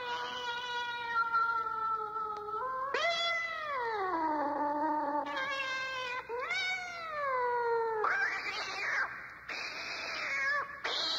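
Cat yowling sound effect played from a cassette tape: three long, drawn-out yowls, each sliding down in pitch, then two harsh hisses near the end.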